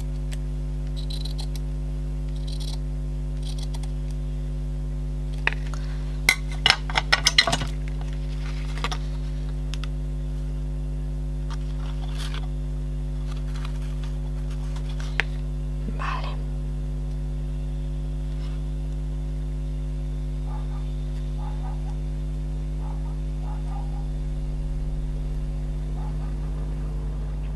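Steady low hum under small handling sounds: scattered light clicks and clinks of scissors and fabric being handled on a cutting mat, with a quick run of clicks about six to seven seconds in.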